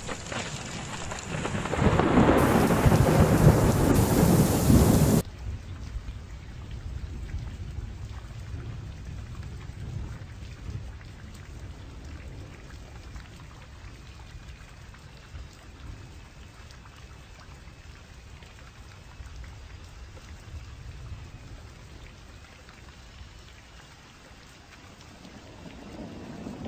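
Thunderstorm: a loud crash of thunder over heavy rain for the first five seconds cuts off abruptly, then steady rain continues with low, rolling thunder.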